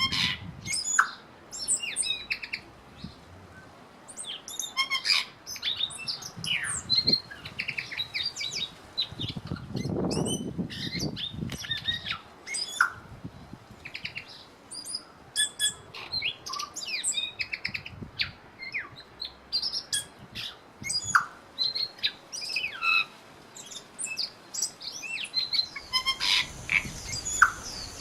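Several birds chirping and calling over one another in a dense run of short high notes and quick down-slurred whistles. A low rumble rises and fades about ten seconds in.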